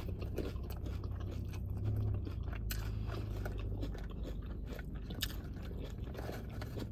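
A person chewing a mouthful of Doritos nacho chips, with many short, sharp crunches scattered throughout.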